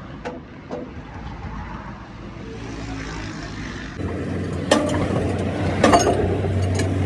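Road vehicle noise with a low rumble, which changes about four seconds in to a steady low engine hum. A few sharp metallic clanks sound over the hum near the end.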